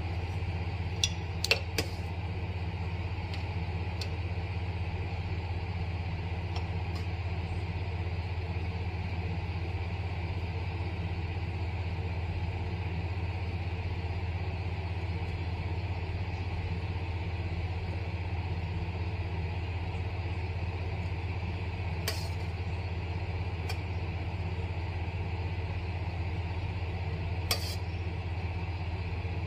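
A metal spoon clinks against an enamel pot of simmering beef a few times, about a second in and twice more later on, over a steady low hum.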